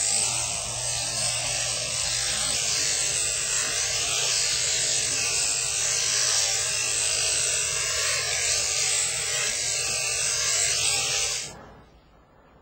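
Electric sheep-shearing handpiece running steadily as it shears a yearling ram's fleece, then cutting off near the end.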